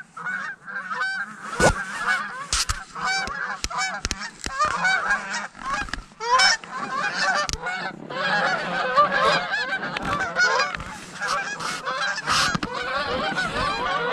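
A flock of geese honking, many short calls overlapping and growing denser about halfway through, with a few sharp clicks in the first half. The geese are circling over the decoy spread.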